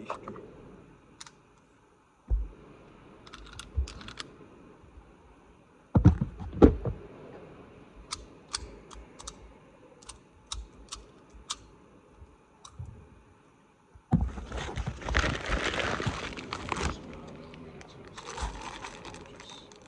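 Handling noises: a few dull knocks, the loudest two close together about six seconds in, and many small sharp clicks, then several seconds of rustling and scraping from about two-thirds of the way through.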